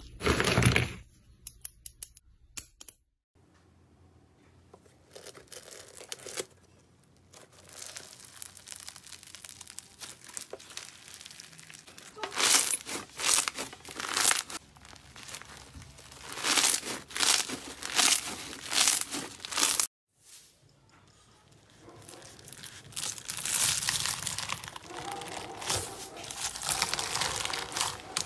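Hands squeezing foam-bead (floam) slime: crisp crackling and popping squishes, in pulses about once a second, then denser crackling near the end. It opens with brittle dried clay shell pieces being crushed with a crunching crackle.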